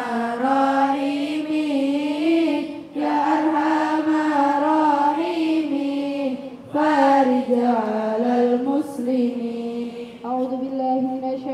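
A large group of teenage girls singing an Islamic devotional chant in unison, in long held melodic phrases with short breath pauses every few seconds.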